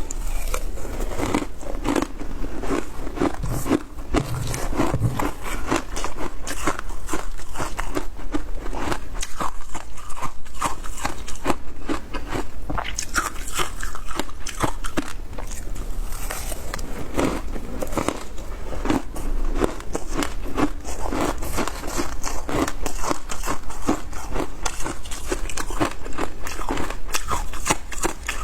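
Frozen matcha ice being bitten and chewed: a steady, dense run of crisp crunches and cracks.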